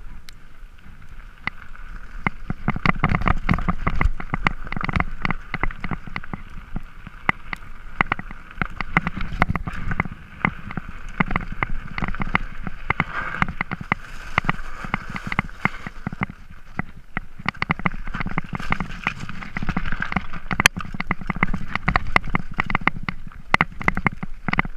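Mountain bike rolling fast down a rocky gravel trail, heard close up: tyres crunching over loose stones and the bike rattling over bumps, with a constant run of sharp knocks.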